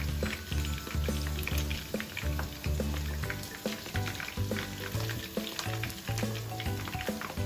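Chicken karaage deep-frying in hot oil, a dense, steady crackling sizzle. Background music with a bass line plays under it.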